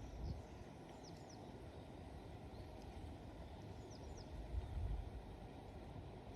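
Outdoor ambience: a steady low rumble, with a small bird's short falling chirps in twos or threes about a second in and again around four seconds. There is a brief low bump near the five-second mark.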